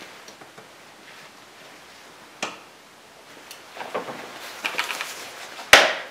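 Handling of wires and hand tools in a car's engine bay: light clicks and rustling, a sharp knock about two and a half seconds in, then a busier run of small clatters. Near the end comes a loud clack as a pair of pliers is set down on the fender.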